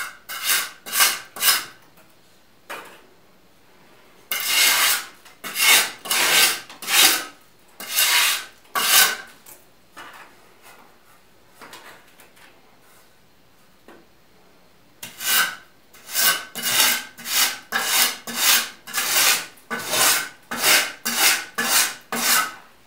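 A flat hand scraper rasping against plaster in repeated strokes. The strokes come in short runs with pauses, then in a faster run of about two strokes a second over the last several seconds.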